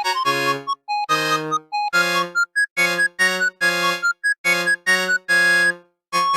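Samsung SCH-X250 ringtone played back as a MIDI file in the MidRadio player: a synthesized melody of short chords and notes in quick phrases, with a brief break near the end before the tune goes on.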